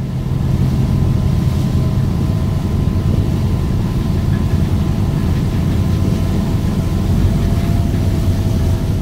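Ferry's engines and propeller wash heard from the stern deck under way: a loud, steady low rumble with the churn of the wake and a faint steady hum above it.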